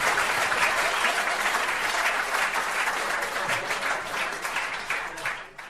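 Crowd applause, many hands clapping steadily, fading out near the end.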